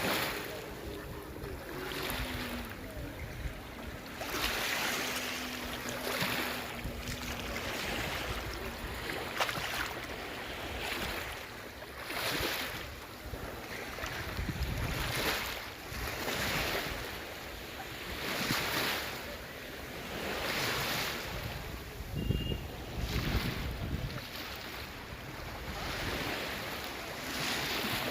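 Small sea waves washing onto the shore about every two seconds, each a swelling and fading rush, with wind buffeting the microphone now and then.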